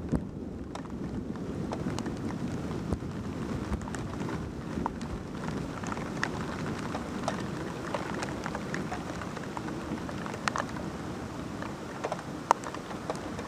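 Steady rain during a thunderstorm, with scattered sharp raindrop ticks on a hard surface and one louder drop about twelve seconds in.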